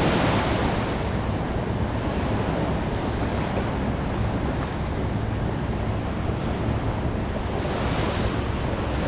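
Small surf breaking and washing up a sandy beach at the water's edge, a steady wash of water that swells at the start and again near the end, with wind buffeting the microphone.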